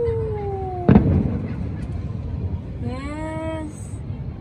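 Distant New Year fireworks: one sharp bang about a second in, over a low steady rumble. A long, slowly falling wail runs up to the bang, and a shorter rising wail comes near three seconds.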